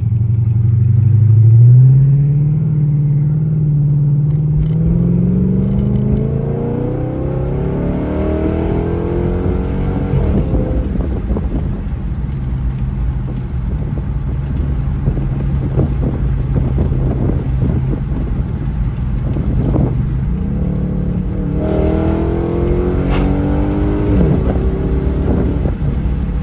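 Dodge Charger's engine pulling hard under acceleration, its pitch climbing steadily for about ten seconds, then holding a steady cruising note before rising again near the end.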